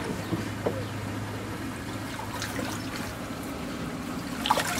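Water trickling steadily in a plastic holding tub, with splashing near the end as a landing net holding a fish is lifted out of the water.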